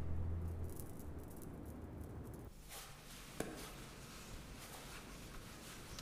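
Low background music dies away in the first second, leaving quiet room tone with a single soft click about three and a half seconds in.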